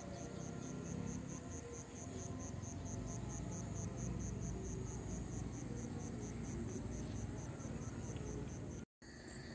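Crickets chirping in a steady run of short high pulses, about four a second, over a low steady background noise. The sound cuts out abruptly for a moment near the end.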